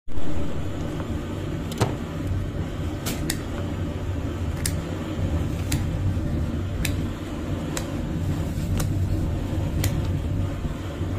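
Kitchen knife scoring a whole fish crosswise on a wooden cutting board: a short sharp click with each cut, about once a second, over a steady low rumble.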